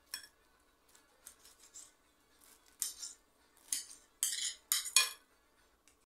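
Kitchen knife clicking and scraping against a ceramic plate while cubing pineapple. It is a run of short, sharp clicks, with longer, louder scrapes about four to five seconds in.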